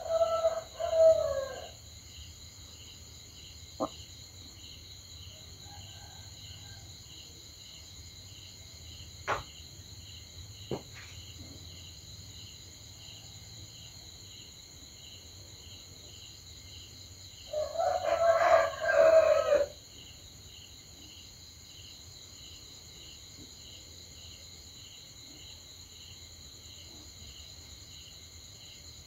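A rooster crowing twice, once at the start and again about two-thirds of the way through, over steady, pulsing cricket chirping. A few sharp clicks fall between the two crows.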